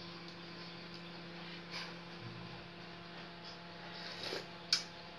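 Steady low electrical hum over a faint hiss, with a few soft clicks, the sharpest near the end.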